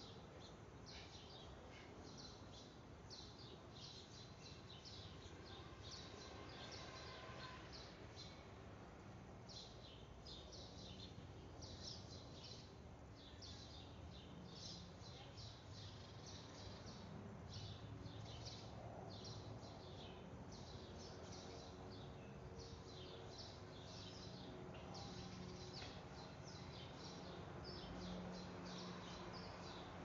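Small birds chirping faintly in a quick, continual run of short high chirps, over a low steady background rumble.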